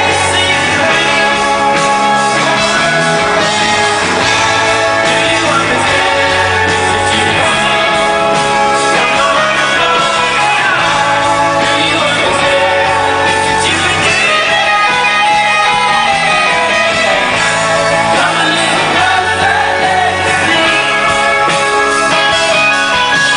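Rock band playing live, heard loud from the audience: male lead vocals over electric guitars, bass and drums.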